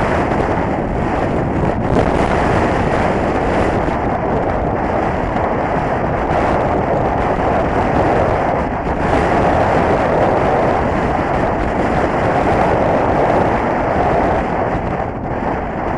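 Strong wind buffeting the microphone of a camera on a moving mountain bike: a dense, rumbling noise that swells and eases in gusts, strongest in the middle stretch.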